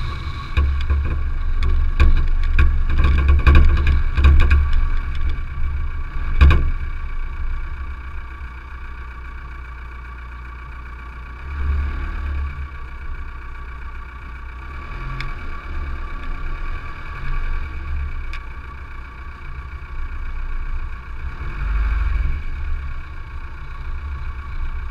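Car driving on a gravel road: engine running with steady tyre and road rumble. Sharp knocks and clatter come over roughly the first six seconds, then the run goes quieter and steadier.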